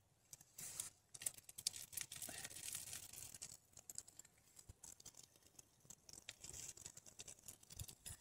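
Faint crackling of a small wood fire as the kindling catches: an uneven run of small ticks and pops over a soft hiss, starting about half a second in.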